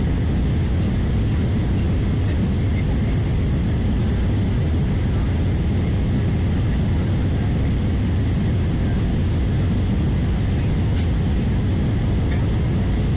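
Steady low cabin roar of an Airbus A320-214 in flight, from its CFM56 engines and the air rushing past the fuselage, with a faint click near the end.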